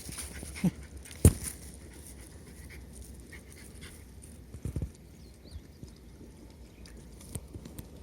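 Jack Russell Terrier panting, with a sharp knock about a second in, the loudest sound, and a couple of softer thumps near the middle.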